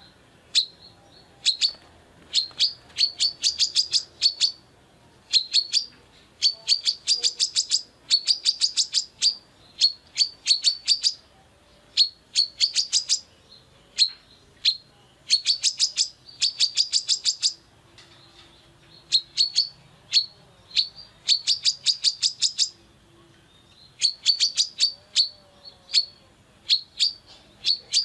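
Female brown-throated sunbird (kolibri kelapa) calling: quick bursts of sharp, high chirps, several notes to a burst, repeated every second or two.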